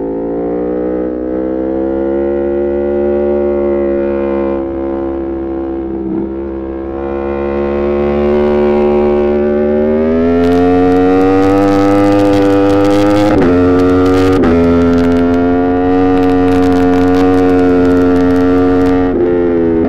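Aprilia Tuono V4 Factory's V4 engine through an open Arrow GP2 exhaust with the dB killer removed, pulling hard at speed. The note climbs steeply through the revs and holds high, with two brief breaks as it shifts, then drops near the end.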